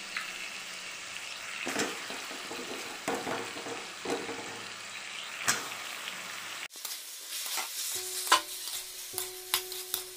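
Raw chicken pieces frying in oil with a tomato-onion masala in an aluminium kadai, sizzling as a metal spatula stirs and scrapes them. There is a sudden break about two-thirds of the way through.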